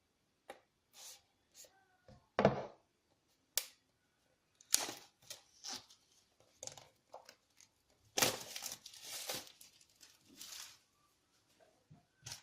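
Packaging being handled and opened: irregular rustling, crinkling and tearing of wrapping, with a few light knocks. The longest stretch of rustling comes about eight to ten seconds in.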